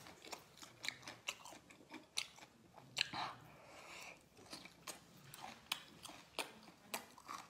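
Close-miked chewing of spicy chicken gizzards: a fast, irregular string of faint crunchy clicks.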